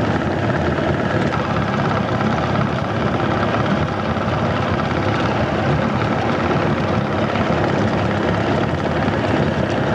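Small fishing boat's motor running steadily while the boat is underway.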